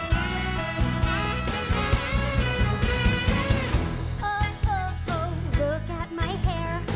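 Upbeat musical-theatre pop song: a band playing over a steady beat, with a woman singing lead, her voice clearest from about four seconds in.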